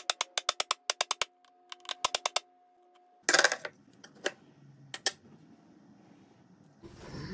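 A metal mini muffin tin knocking rapidly against a tiled countertop, about eight sharp knocks a second in two short runs, then a brief scrape and a couple of single clicks of a knife against the tin.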